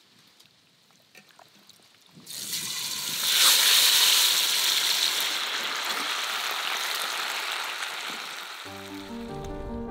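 Pieces of meat sizzling loudly in hot oil in a frying pan, the sizzle starting suddenly about two seconds in and easing off slightly after its peak. Piano music comes in near the end.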